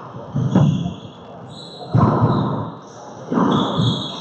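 Handball rally in an enclosed four-wall court: three hard smacks of the rubber ball, about a second and a half apart, each echoing off the walls. High sneaker squeaks on the hardwood floor come between the hits.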